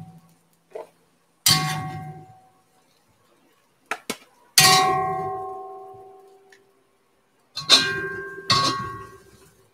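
A utensil striking a Lodge cast iron wok, giving four ringing clangs, each dying away over a second or two, with a few lighter clicks between them. The loudest clang comes about four and a half seconds in.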